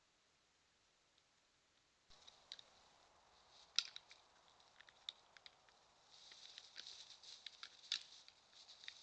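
Faint, irregular crisp clicks and crackles of white-tailed deer feeding and moving in dry grass, starting about two seconds in, with one sharper click near four seconds in and denser crackling in the second half.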